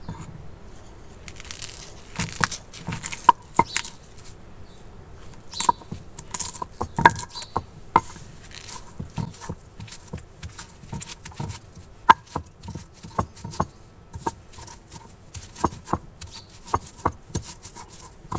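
A hand-held stone pounding and rubbing on a flat grinding slab (a sil-batta), crushing fresh mint leaves, a green chili and garlic cloves. Irregular sharp knocks of stone on stone, with softer crushing and scraping between them.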